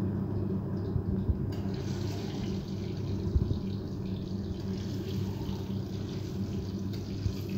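Boiled eggs frying in hot mustard oil in a metal kadai on a high flame: a steady sizzle over a steady low hum, with a few light knocks as a metal spatula turns the eggs.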